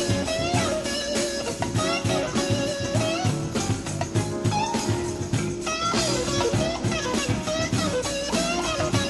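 Live band music: an electric guitar plays a lead line of bending, sliding notes over a steady drum beat.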